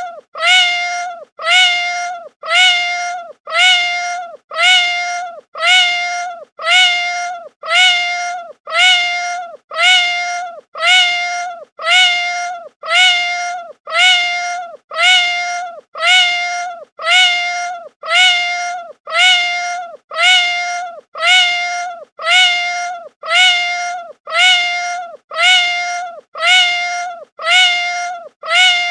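Domestic cat meowing lightly: the same short meow, with a steady pitch that dips slightly at its start and end, repeated identically about once a second as a loop.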